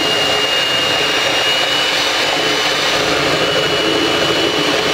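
Hamilton Beach electric hand mixer running steadily, its beaters whipping eggs in a stainless steel bowl, with a constant high whine over the motor noise. The eggs are being beaten until frothy and aerated.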